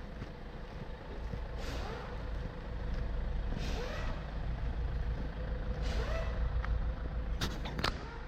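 A heavy engine running with a steady low rumble, with a few short squeaks and two sharp clicks near the end.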